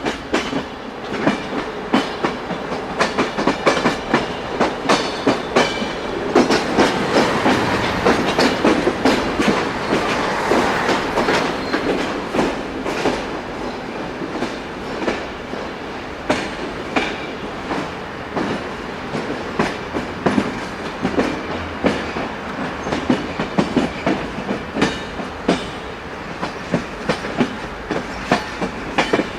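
Train wheels running over rail joints: a quick, uneven clickety-clack of sharp clicks over a steady rolling rumble, which grows louder for several seconds in the middle.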